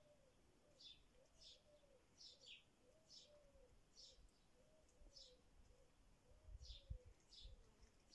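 Faint birdsong: a small bird chirping over and over, short high chirps about once or twice a second, over a faint low wavering tone.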